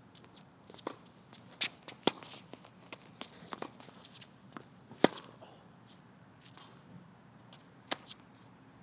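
Tennis rally on a hard court: irregular sharp pops of the ball off racket strings and off the court surface, the loudest about five seconds in.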